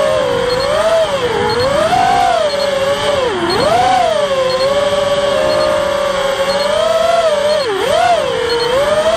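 FPV racing quadcopter's four Emax RS2205-2300 brushless motors and propellers whining loudly in flight. The pitch rises and falls with the throttle and drops sharply twice, as the throttle is chopped.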